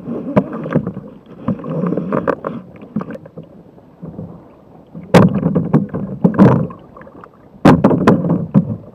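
Choppy waves slapping and splashing against the bow of a Jackson Cuda 14 sit-on-top fishing kayak in rough water, in irregular loud bursts, the biggest about five seconds in and again near the end.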